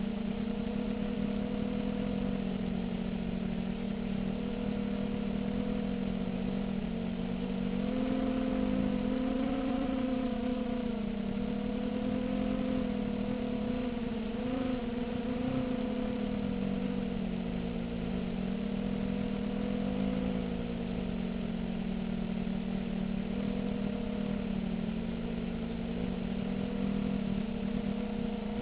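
A 250-size FPV quadcopter's RCX H1806 2400kv brushless motors and Gemfan 5x3 propellers droning steadily in flight, the pitch wavering slightly up and down as the throttle changes.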